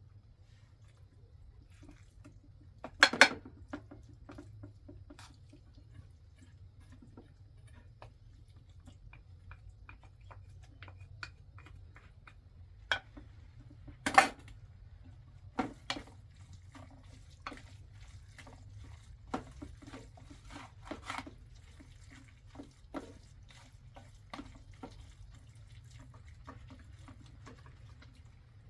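Dishes, pots and utensils clinking and knocking at irregular intervals, with two louder knocks about 3 and 14 seconds in and a busier run of small clinks in the second half, over a steady low rumble.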